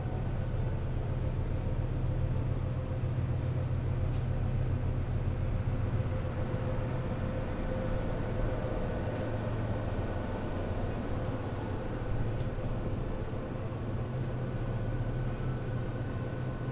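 Steady low mechanical rumble with a faint steady hum above it, unchanging throughout.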